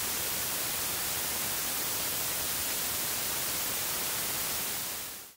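Steady white-noise static hiss, strongest in the high end, that fades out quickly just before the end and drops to silence.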